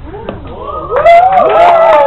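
Audience laughing and cheering, many voices overlapping, swelling loudly from about a second in.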